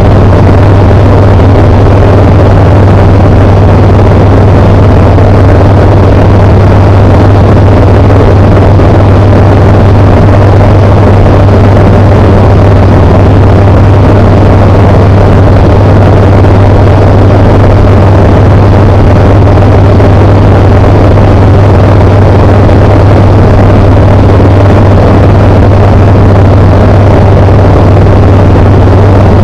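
Tecnam P92 light aircraft's engine and propeller running at a steady power setting, a constant loud drone with a deep hum and no changes in pitch.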